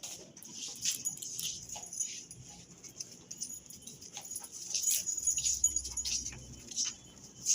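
Rottweiler making soft dog sounds among a run of short, hissy, high-pitched scratches and clicks, busiest around five seconds in.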